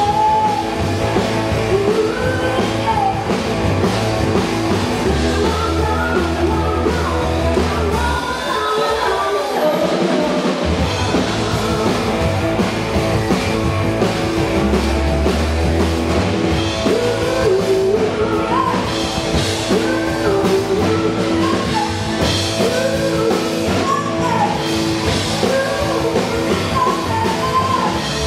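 Live rock band playing: a woman singing lead over electric bass, guitar and drum kit. The deep bass drops out for about two seconds roughly eight seconds in, then comes back.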